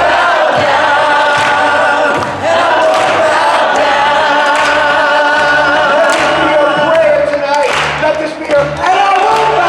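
A group of voices singing together in held, sliding notes, over a steady low beat.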